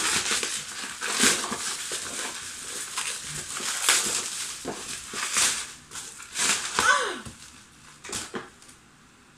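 Bubble wrap and plastic packaging crinkling and tearing as they are pulled apart by hand, in irregular rustling bursts that die away near the end.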